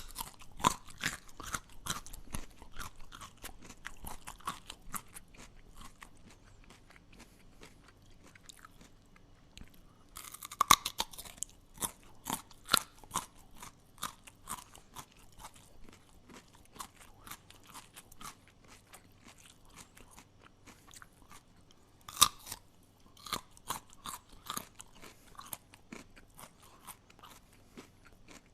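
A person chewing something crunchy: runs of quick, sharp crunches with quieter pauses between. The loudest crunches come about ten seconds in and again about twenty-two seconds in.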